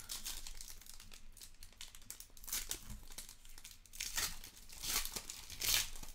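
Foil wrapper of a 2019-20 Donruss basketball hobby pack crinkling and tearing as it is ripped open by hand, with louder crackles in the last couple of seconds.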